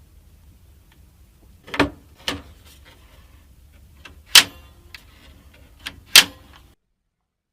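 Hard clicks and knocks from computer parts being handled during a PC build: four loud ones among several softer taps, over a low hum. The sound cuts off abruptly near the end.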